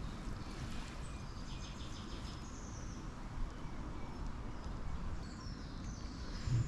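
Outdoor ambience: a steady low rumble with faint high bird chirps scattered through it.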